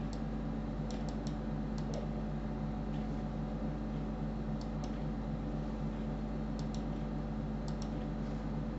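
Computer mouse buttons clicking, about a dozen sharp clicks that come mostly in quick pairs and threes, over a steady low electrical hum.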